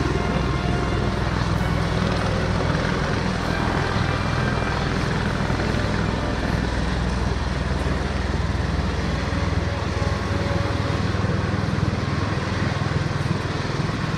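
V-22 Osprey tiltrotor hovering in helicopter mode, its two proprotors making a steady, deep drone.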